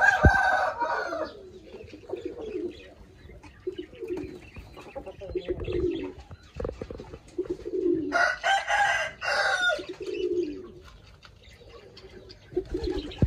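A rooster crowing twice, once at the start and again about eight seconds in. Softer, low, short calls from the fowl come in between.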